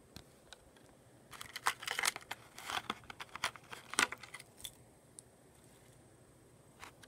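Metal split rings of two small vinyl-figure keychains clinking and jangling as they are handled and set down, mixed with crinkling plastic wrapping. A quick run of sharp clicks and crackles from about a second in, stopping about five seconds in.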